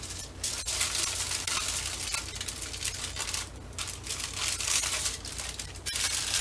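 Aluminum foil crinkling and crackling as it is wrapped and rolled around a log of ground meat, in many small irregular crackles.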